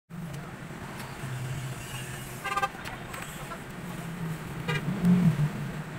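Street traffic with engines running steadily, and a vehicle horn giving two short toots, about two and a half and four and a half seconds in. The engine noise swells louder near the end.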